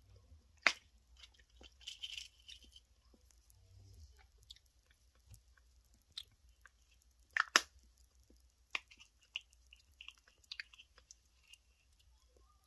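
Dwarf hamster nibbling a piece of food: quick small crunchy clicks of its teeth. Two sharper, louder crunches come about a second in and about halfway through.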